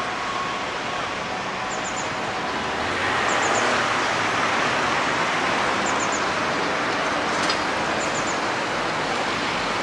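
Steady hum of road traffic, swelling a little about three seconds in. A bird's short, high three-note chirp repeats every couple of seconds over it.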